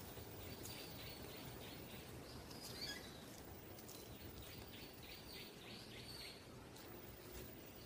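Faint outdoor ambience with birds chirping in the trees, including one sharper chirp about three seconds in.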